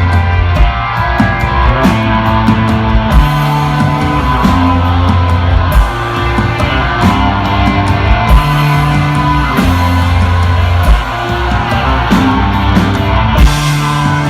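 Instrumental desert rock played live by a trio of electric guitar, bass guitar and drums. A low bass riff repeats about every four seconds under the guitar, with steady cymbal and drum hits.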